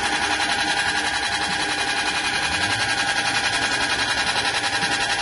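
Soybean hull-peeling machine running steadily: a constant mechanical hum and whine with a fast, even pulsing, as the dehulled, split beans pour out of the outlet.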